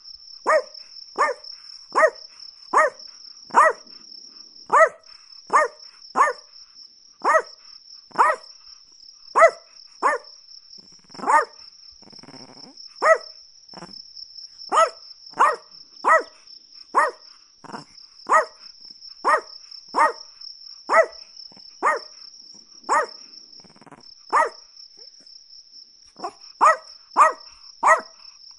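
A Chihuahua barking repeatedly in short, sharp, high yaps, about one a second, sometimes in quick pairs, with a pause of about three seconds near the end. A steady high-pitched trill runs behind the barks.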